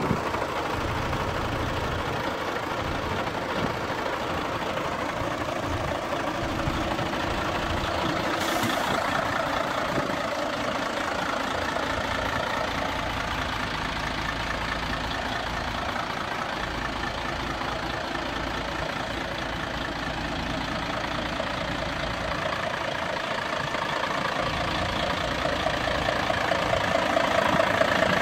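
Mercedes-Benz Actros 1844's V6 diesel engine idling steadily, growing somewhat louder near the end as it is approached from the front with the cab tilted.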